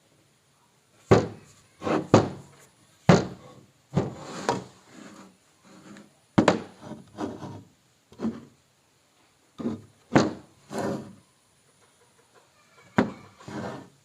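Wooden pieces being handled and knocked together: about a dozen sharp, irregular knocks, some with a short rattle or scrape after them.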